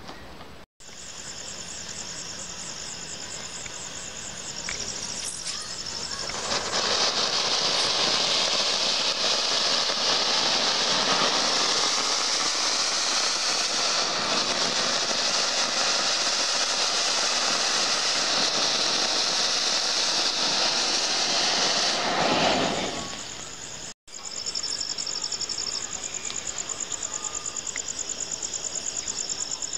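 A flower-pot ground fountain firework (anar) hisses steadily for about fifteen seconds as it sprays sparks, then dies away. Crickets chirp before and after it.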